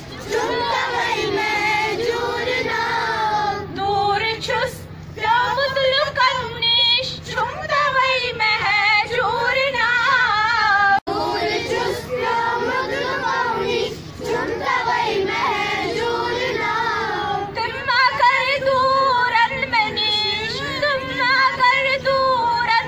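A group of girls' and women's voices singing together in one long continuous song, with a brief dropout a little before halfway.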